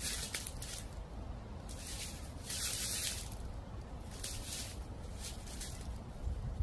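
Dry fallen leaves rustling and crunching in short bursts, about one a second, over a steady low rumble of wind.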